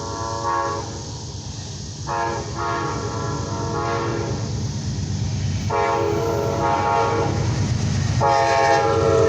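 Amtrak Auto Train diesel locomotive sounding its multi-chime air horn in four long blasts, the first already underway at the start and the last running on past the end. Under the horn, the rumble of the approaching train grows steadily louder.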